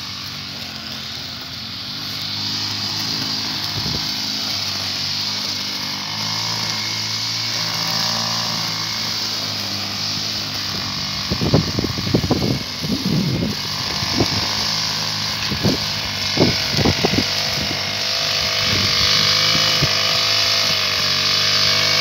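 Petrol brush cutter running steadily while cutting grass, its engine note wavering a little. A run of irregular knocks and thumps breaks in from about halfway through to three-quarters of the way.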